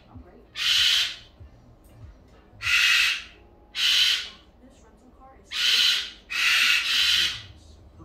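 Goffin's cockatoo screaming: five loud screams, each under a second, with the last two back to back.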